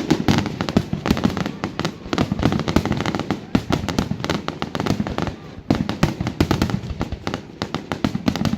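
Fireworks display: a dense, rapid run of bangs and crackles, many a second, with a short lull about five and a half seconds in.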